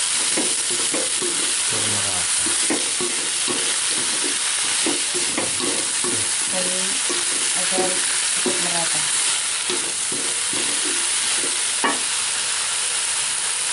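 Papaya leaves sizzling in oil in a metal wok while a wooden spatula scrapes and turns them in repeated strokes. One sharp tap comes near the end.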